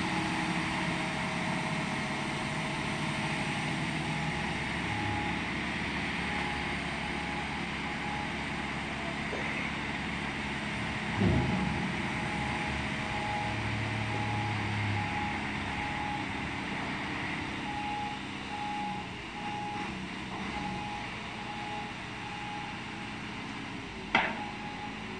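Large truck-mounted mobile crane's diesel engine running steadily under load as it lifts and swings a steel bridge girder, with an alarm beeping at an even pace and two sharp knocks, one about 11 seconds in and one near the end.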